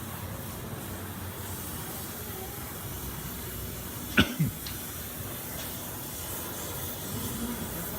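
Steady hiss of a gas torch flame burning old epoxy resin out of a cast sculpture's foot, with a brief sharp sound about four seconds in.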